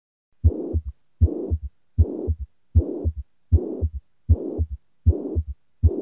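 Auscultation recording of a heart with the holosystolic murmur of atrioventricular valve regurgitation (mitral/tricuspid regurgitation): each beat is a low first heart sound, a steady murmur filling the whole of systole, then the second heart sound. About eight beats, evenly spaced at roughly 80 a minute.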